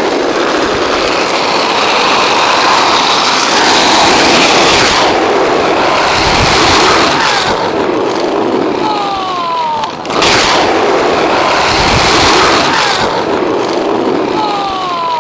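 Loud, steady rushing of wind buffeting the camera's microphone, with road noise, as the camera moves along with bicycle riders. Short falling whistles sound twice, about nine seconds in and near the end.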